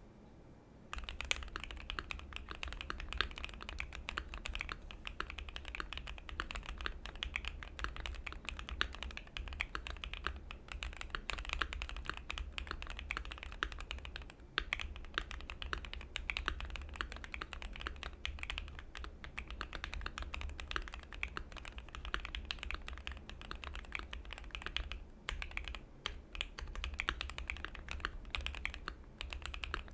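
Fast, continuous typing on a Keychron Q1 mechanical keyboard with lubed Tangerine linear switches, a steel plate and PBT Cherry-profile keycaps. The key presses come in a rapid, dense stream starting about a second in, with a couple of brief lulls.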